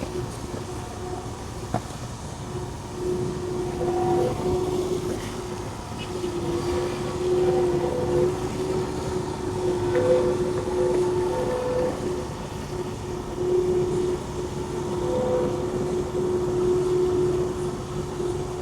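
Ice resurfacer (Zamboni) running as it lays water on the skating ribbon: a steady machine drone with a clear tone that swells and fades as it moves along.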